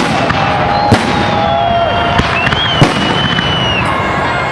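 Fireworks salute going off: a constant crackle of bursting shells, with sharp bangs about a second in and again near three seconds, and long high whistles drawn out over the top.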